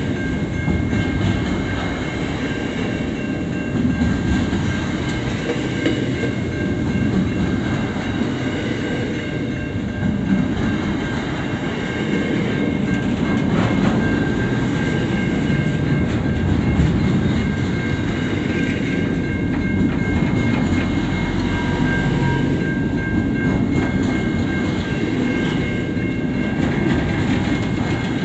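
Freight train's container wagons rolling past close by: a steady rumble of steel wheels on rail, with faint steady high-pitched tones above it and one clear knock about halfway through.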